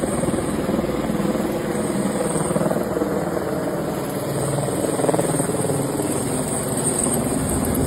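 Helicopter flying, its rotor and engine running steadily with a fast, even rotor beat.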